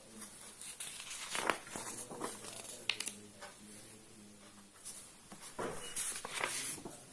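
Paper rustling and crinkling in irregular bursts, with a few sharp clicks, as sheets are handled and turned.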